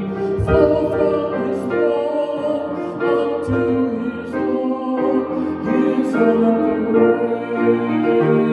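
A man singing, accompanying himself on a grand piano.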